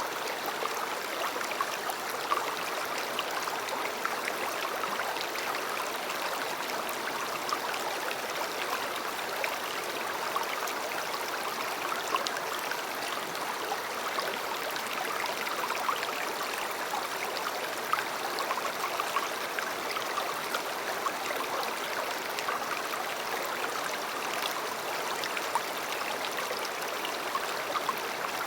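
A river or stream flowing steadily over stones, an even rushing with small splashes and trickles scattered through it.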